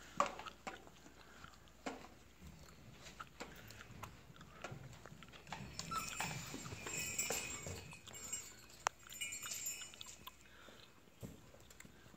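Doberman puppies playing among hanging toys: scattered clicks, clinks and knocks, with paws scuffling on a plastic floor sheet. The rustling gets busier from about six to ten seconds in.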